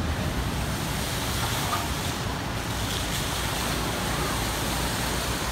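Log flume water rushing and churning steadily through the splashdown pool and runout channel, with wind rumbling on the microphone.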